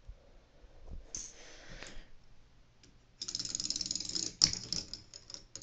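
Plastic parts of a K'nex ball machine clattering: soft rattles, then a dense run of rapid small clicks a little over three seconds in that lasts about a second, followed by a sharper click and a few scattered ticks.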